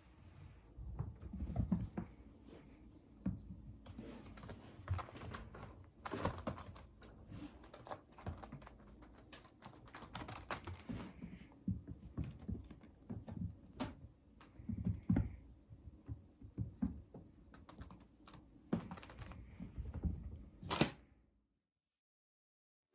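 A kitten scampering and playing about a room: irregular light taps, clicks and soft thuds with no steady rhythm, stopping abruptly near the end.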